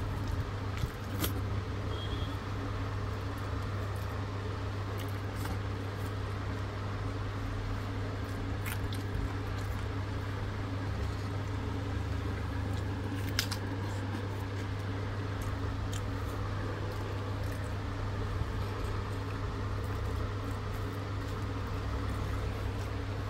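A steady low hum in the room, with scattered faint crinkles and taps as rice and dal are mixed by hand on a foil-lined paper plate.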